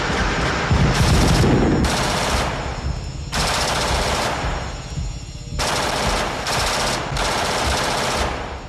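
Automatic rifle fire in repeated bursts, about six bursts of rapid shots separated by short pauses.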